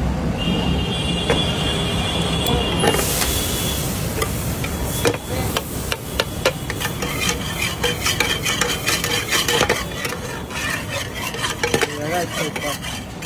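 A metal spatula stirs and scrapes through a large iron pan of sizzling fat. In the second half there are many sharp clicks as the spatula strikes the pan.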